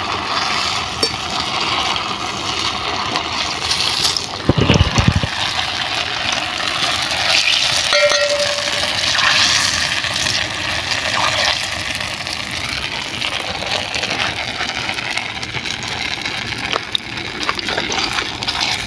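Hot oil sizzling steadily as pieces of wheat-flour dough deep-fry in a steel kadai, with a wire spider strainer stirring and lifting them. There is a single low thud about four and a half seconds in.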